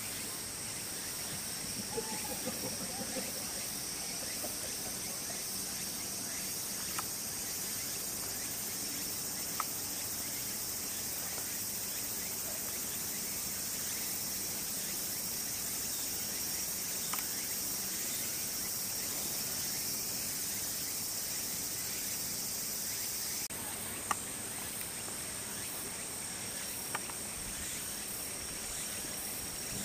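Insects singing in a steady, shrill chorus at two high pitches, with a few faint sharp clicks; the chorus changes abruptly about three-quarters of the way through.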